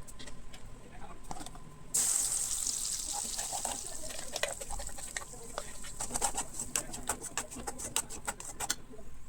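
Something dropped into hot oil in a pan sizzles suddenly about two seconds in, the sizzle fading, followed later by a quick run of crackling pops from the frying.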